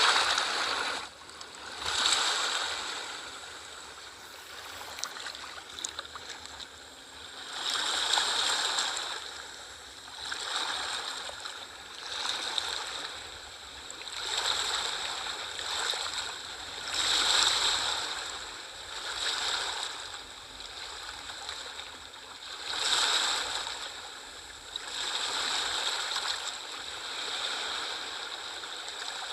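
Sea waves washing in, in irregular swells every two to three seconds.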